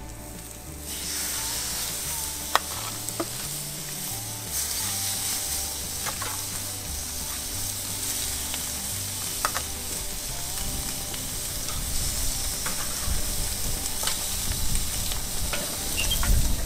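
Raw pork belly slabs sizzling on a hot grill grate as they are laid down. The sizzle starts about a second in and grows louder a few seconds later as more pieces go on, with a few sharp clicks of metal tongs against the grate.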